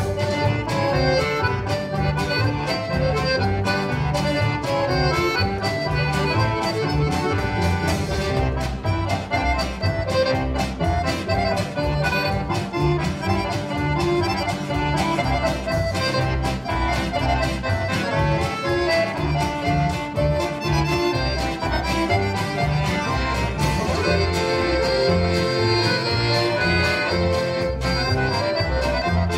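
Two accordions, one of them a Roland button accordion, playing a lively polka, backed by guitar, bass and a drum kit keeping a steady beat.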